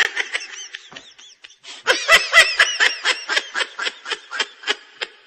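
High-pitched, rapid laughter in quick repeated pulses: a short burst at the start, then a longer, fast run from about two seconds in.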